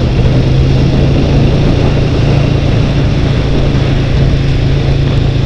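Twin-cylinder motorcycle engine running steadily while riding, heard from a helmet camera with a steady rush of wind and road noise.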